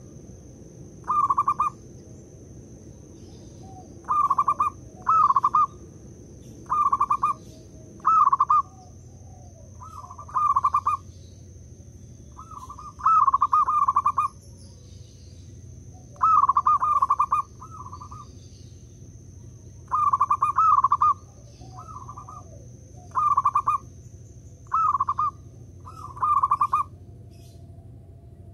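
Zebra dove (perkutut) cooing: short, rolling, trilled coo phrases repeated every second or two, some run together into longer bouts.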